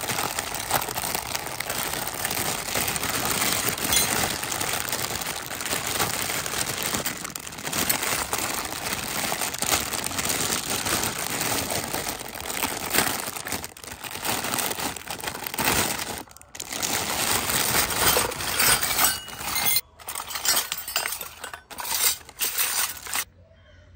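Clear plastic bag crinkling as hands squeeze and open it, with miniature steel and plastic toy kitchen utensils clinking against each other inside. Near the end the little metal pieces clatter together loose, and the sound cuts off abruptly just before the end.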